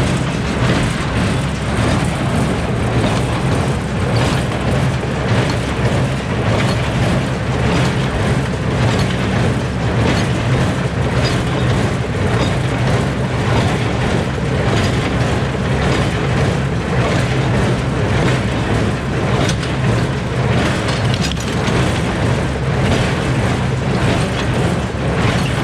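New Holland 310 small square baler running steadily, driven by its tractor: a loud, even machine noise over a low engine hum.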